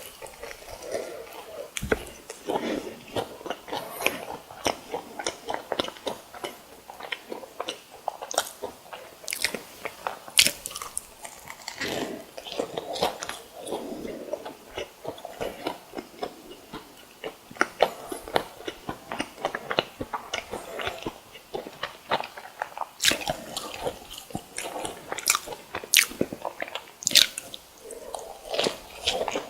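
Close-miked biting and chewing of crisp fried snacks (sweet rice doughnuts and croquettes), with many sharp, irregular crunches. The crunching comes in clusters, loudest about ten seconds in and in a run of loud crunches near the end.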